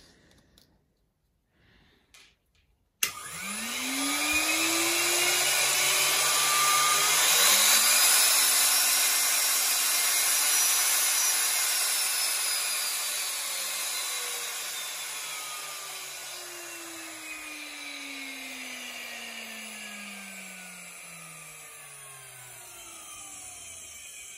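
Precise Super 65 high-speed drill press motor switched on with a click about three seconds in. It spins up with a rising whine over several seconds, then its pitch and level slowly fall away. The air-cooled motor's fan rush runs under the whine.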